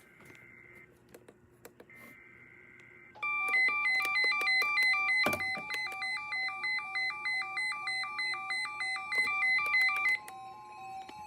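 Electronic alert tone: two high pitches alternating rapidly, several times a second, over a steady lower tone. It starts abruptly about three seconds in and cuts off about a second before the end, after two short, faint high beeps.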